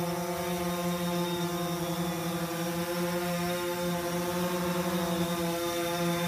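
DJI Phantom 4 quadcopter giving off a steady, unbroken hum: one low pitch with an even stack of overtones and a fainter high whine, with no separate beeps.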